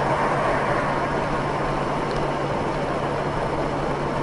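Steady engine hum and road noise of a moving vehicle, even and unchanging throughout.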